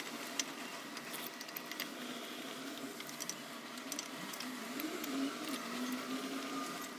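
Faint small clicks and scrapes of a screwdriver driving in the screws that hold a starter motor onto a motorcycle engine's aluminium crankcase. A faint low hum that wavers in pitch sounds in the background about halfway through.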